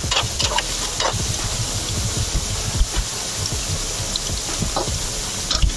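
Spinach and gram-flour (besan) pakoras deep-frying in hot oil in a steel kadhai: a steady sizzle with fine crackling, and a few brief clicks.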